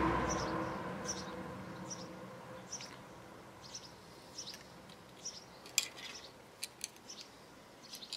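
A ringing tone from a strike just before dies away over the first second or so. Faint high chirps then repeat a little more than once a second, with a few light clicks of needle-nose pliers working a copper wire.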